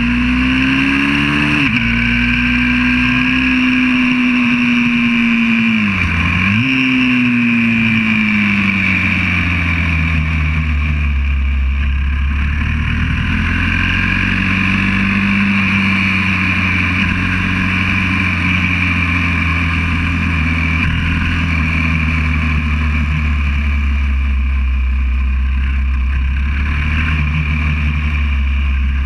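YCF 125cc four-stroke pit bike engine at speed, heard from on board: the revs climb and break off about a second and a half in, drop sharply and pick up again about six seconds in, then sag slowly and climb back, holding fairly steady through the rest.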